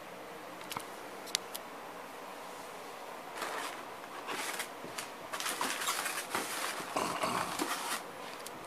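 A few light clicks, then irregular rustling and scraping close to the microphone from about three seconds in until near the end.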